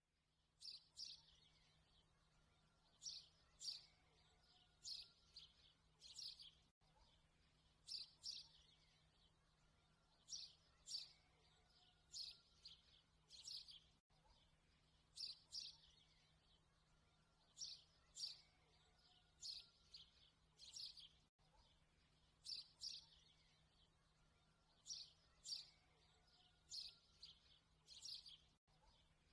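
Faint bird chirps, short high calls in quick groups of two or three, from a short recording that loops about every seven seconds with a brief dropout at each join.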